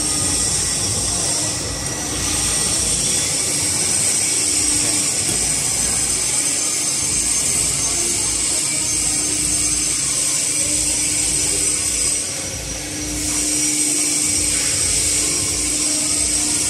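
Electric pan mixer running steadily with a constant hum, its paddles churning damp charcoal powder mixed with tapioca starch and water into briquette dough. The sound dips briefly twice.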